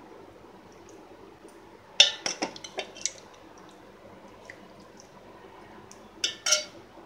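Steel ladle clinking and scraping against a metal pot while scooping thin stew, with liquid sloshing. There is a quick run of knocks about two seconds in and two more near the end.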